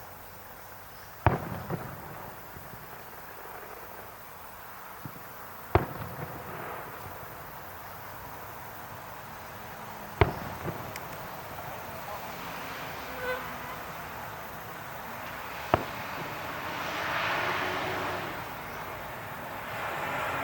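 Fireworks shells bursting overhead: four sharp bangs a few seconds apart, each followed by a brief crackle.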